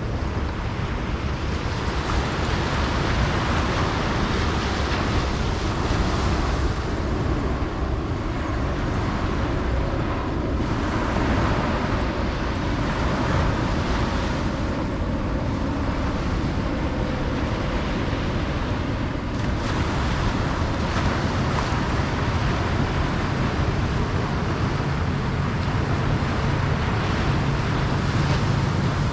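Ocean waves breaking and washing up on a beach in slow swells, with wind on the microphone. A low steady hum, like a passing engine, comes in near the end.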